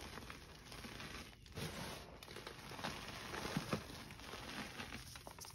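Hands crushing and squeezing crumbly gym chalk: a soft, continuous crumbling and crunching of powdery lumps, with a couple of louder crunches about three and a half seconds in.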